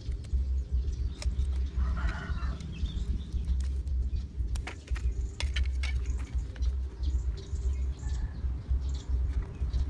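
Small clicks and taps from hands handling a PVC-pipe slingshot frame while tying its rubber band, over a low, unsteady rumble. A bird chirps briefly about two seconds in.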